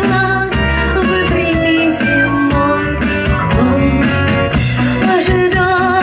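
A woman singing a song with a live band, over an electric bass guitar and drums.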